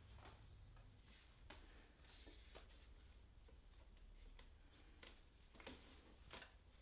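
Near silence, with a few faint soft rustles and taps as a strip is wound tightly around a guitar neck to clamp the newly glued fretboard.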